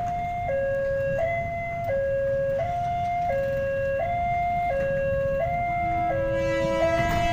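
Railway level-crossing warning alarm sounding its two-tone electronic signal, switching between a lower and a higher note about every 0.7 s, the warning that a train is approaching. Vehicle engines idle underneath, and a lower steady tone joins near the end.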